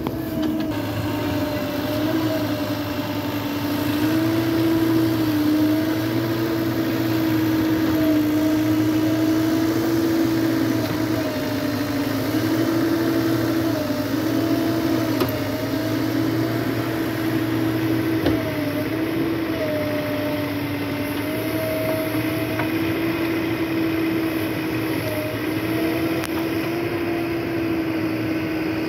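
JCB backhoe loader's diesel engine and hydraulics running steadily at working revs, the pitch sagging briefly and recovering several times as the hydraulics take load while it handles wet mud and digs.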